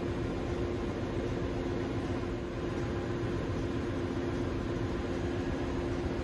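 Steady drone of ship's engine-room machinery: a constant hum over an even rumbling noise, unchanging throughout.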